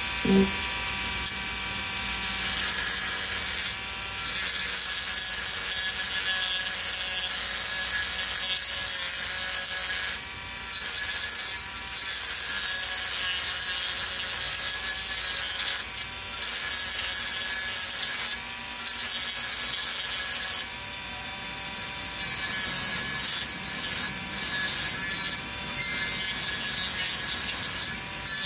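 Rotary tool with a fiberglass cutoff wheel grinding into a model locomotive's metal truck side frame with a steady whine and hiss, dipping briefly several times as the wheel comes off the metal. It is deepening the middle-axle bearing pockets so that the axle can float up and down.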